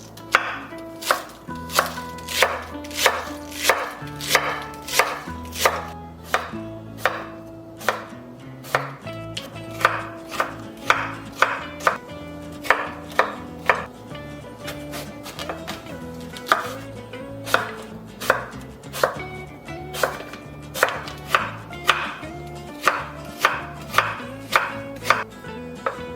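Kitchen knife striking a cutting board in steady, even strokes, about one and a half a second, while vegetables are thinly shredded.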